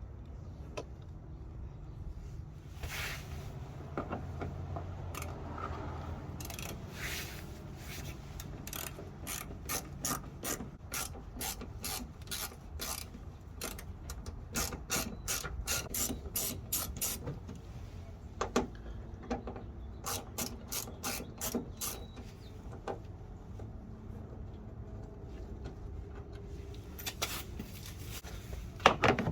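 A 1/4-inch ratchet driving a T15 Torx bit clicks in quick runs as it turns the truck's fender bolts, with pauses between runs and a sharp knock near the end.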